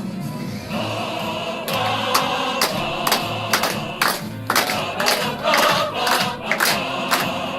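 A choir and instrumental concert music with a steady beat of about two a second, joined about a second and a half in by an audience clapping along in rhythm.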